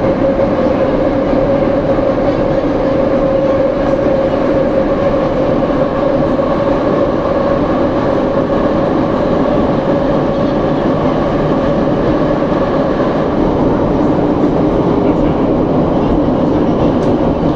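Soviet-type 81-717/714 metro train running at speed between stations: a loud, steady rumble of wheels and running gear, with a steady traction-motor whine over it and a second, lower whine that grows stronger in the second half.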